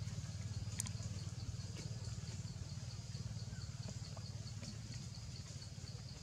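Outdoor ambience of a steady low rumble under a high, thin chirp that repeats evenly about three times a second, with one sharp click about a second in.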